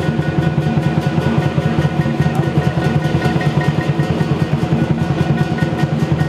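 Southern lion dance percussion ensemble playing: a big lion drum beaten in a fast, steady rhythm with clashing cymbals and a ringing gong.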